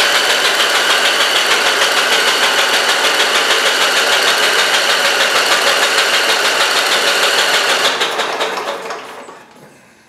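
Electric starter cranking a Briggs & Stratton 20 HP twin-cylinder engine over without it firing, a steady whine with an even, rapid pulse, during a compression test on a cylinder suspected of low compression. The cranking stops about eight seconds in and winds down.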